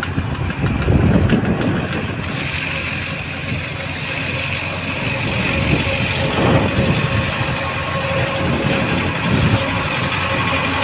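Motor vehicle engine running steadily with road noise, with a steady high whine joining about two seconds in.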